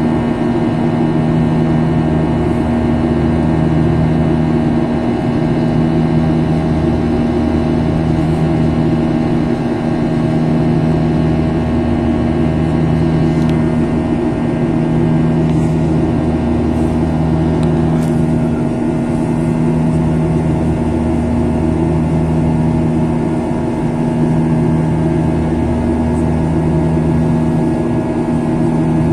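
Boeing 737-800's CFM56-7B turbofan engines heard from inside the passenger cabin in flight: a steady, loud drone with several held tones and a low throb that swells and fades about every two seconds.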